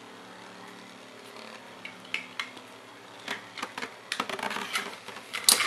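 Two metal-wheeled Beyblade spinning tops whirring steadily in a plastic stadium. After about two seconds, sharp clicks of the tops striking each other and the stadium begin, coming faster and louder toward the end as the round is decided.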